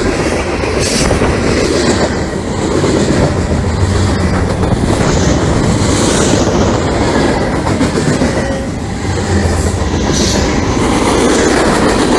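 Mixed freight train of box cars, hopper cars and tank cars rolling past close by: a steady loud rumble with the wheels clacking over the rail joints.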